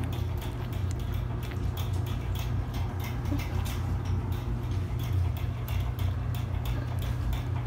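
Frequent soft ticks and rustles from 3.5-week-old Shih Tzu puppies squirming and mouthing at a hand on a plush blanket, over a steady low hum.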